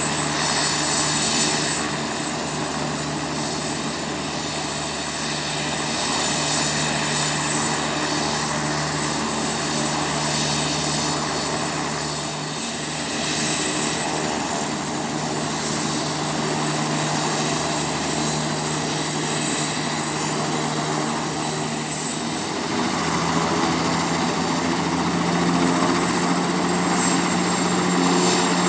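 Sikorsky S-58T helicopter's twin turbine engines running with the main rotor turning on the ground: a steady engine drone under a high whine. About 23 seconds in the engine note steps up in pitch and gets louder.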